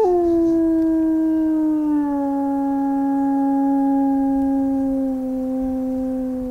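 Recorded howl of a single adult wolf played through an amplifier and horn loudspeaker, the artificial call of a wolf-howling survey meant to draw a reply from wolf packs. One long howl slides slowly down in pitch and is held for several seconds.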